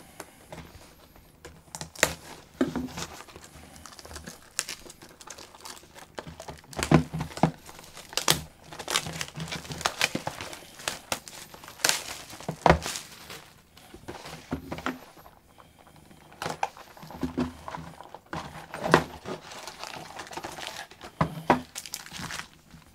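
Plastic wrapping on a sealed trading-card box being torn open and crumpled, with irregular crinkles and tearing, as the box is unwrapped and its packs are taken out.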